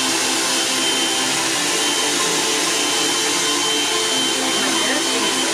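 Hot-air blow dryer brush running on a steady setting: a continuous rush of blown air and motor noise with a thin, steady high whine.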